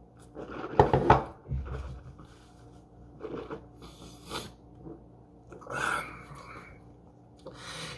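A man's short non-word vocal sounds and breaths, the loudest one about a second in, just after a sip from a ceramic mug. A low thud follows, as the mug is set on the table, and then a few lighter breaths and rustles.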